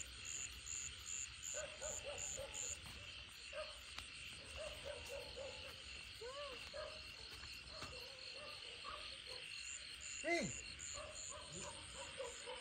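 Chorus of frogs calling in short, repeated croaks over steady insect trilling, with a high note pulsing about three times a second. About ten seconds in, one louder call falls sharply in pitch.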